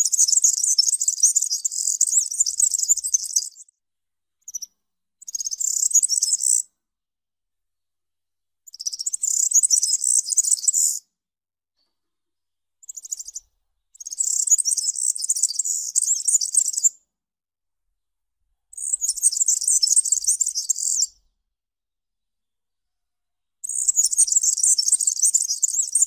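European serin singing: repeated bursts of rapid, high song, most two to three seconds long, with short silences between.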